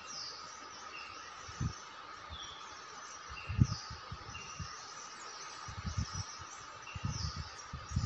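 Forest ambience: birds repeating short, falling chirps at two pitches over a steady insect drone. Low thuds break in about a second and a half in, again around three and a half seconds, and several times near the end.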